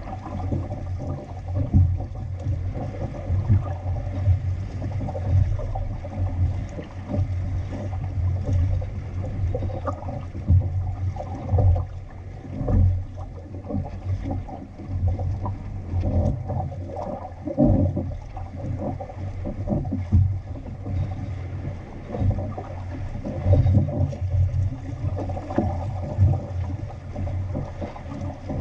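Water splashing and gurgling along the hull of an outrigger sailing canoe under way, over a low, uneven rumble of wind on the microphone.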